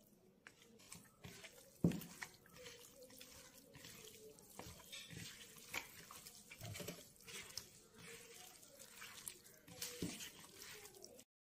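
Raw chicken pieces squelching as a bare hand kneads them with chilli masala in a plastic bowl: irregular, faint wet squishes with a sharp knock about two seconds in. The sound cuts off abruptly near the end.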